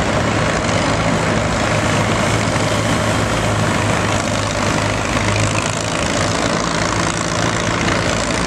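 Ford farm tractor's diesel engine running steadily under load, pulling a weight-transfer sled at a tractor pull.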